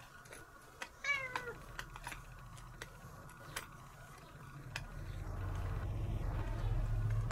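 A domestic cat gives one short meow that falls in pitch about a second in, among a few light clicks. From about five seconds a low, steady rumble builds as an adhesive lint roller is rolled over the cat's fur.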